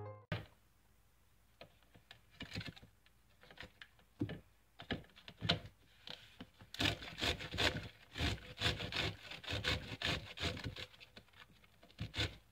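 Cauliflower florets being grated on a handheld grater over a bowl: rasping scrape strokes, scattered at first, then quickly repeated at about four strokes a second from about halfway through.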